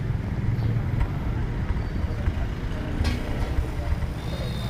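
A motor vehicle's engine running with a steady low rumble, with a short click about three seconds in.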